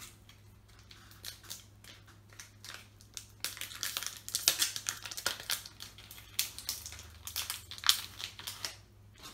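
A foil trading-card booster pack wrapper crinkling and crackling as it is torn open. A few scattered crackles come first, then a dense run of them from about three and a half seconds in.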